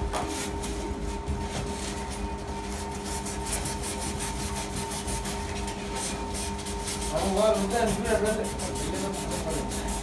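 Cutter knife blade cutting through a white foam cork sheet: a quick, continuous run of scratchy cutting strokes.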